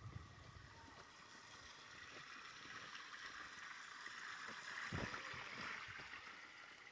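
Small stream of running water, faint, swelling louder about five seconds in, with one dull thump at about that point.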